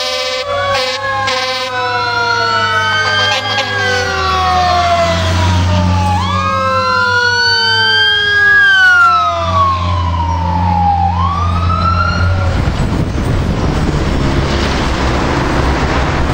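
Fire-truck sirens sounding as the apparatus passes, several tones rising quickly and then gliding slowly down in long wails, with a horn blast in the first second or so. The trucks' deep engine rumble runs underneath and drops away about twelve seconds in, leaving fading sirens and road noise.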